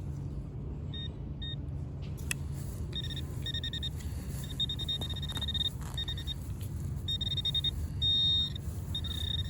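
Metal-detecting pinpointer probe beeping at one high pitch as it closes in on a buried coin: two short beeps at first, then quicker and longer beeps, some held almost steady, as it nears the target. A steady low rumble runs underneath.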